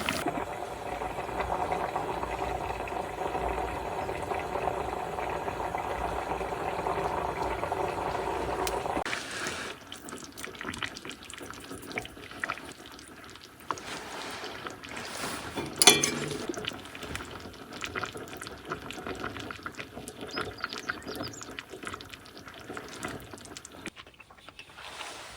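Water running steadily into a container for about nine seconds, then stopping. Small handling clicks and knocks follow, with one sharp loud clack near the middle.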